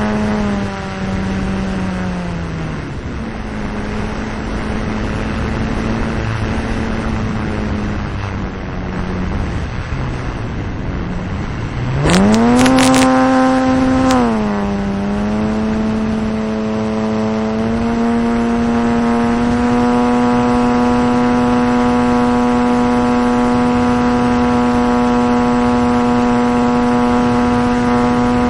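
Motor and propeller of a radio-controlled T-28 Trojan model plane, heard from on board against a hiss of rushing air. The pitch drops as it is throttled back on the approach. About twelve seconds in there are a few sharp knocks as it touches the strip, and the pitch surges up. After a brief dip the motor settles at a higher, steady pitch for the climb-out of a touch and go.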